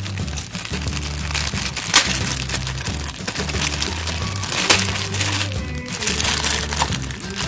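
Clear plastic polybags of building-brick pieces crinkling and crackling as they are handled and squeezed, with sharper cracks about two seconds in and again near five seconds, over background music.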